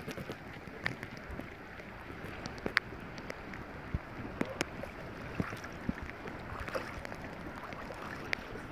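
Shallow loch water sloshing and splashing around a pike being held in it at the bank, with scattered small clicks and rustles.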